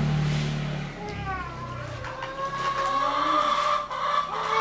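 A young child crying and whining in wavering, rising and falling wails, with a low steady hum during the first second.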